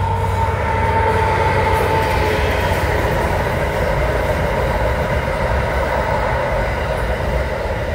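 An SCT steel freight train passing close by, a steady rumble of wagons on the rails. A ringing tone over the rumble fades out within the first couple of seconds.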